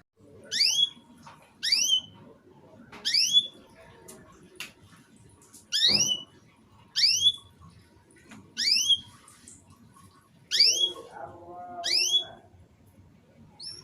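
Canary giving short, separate sweeping chirps, one about every second and a half, in the broken-off style used to prompt young canaries to start singing.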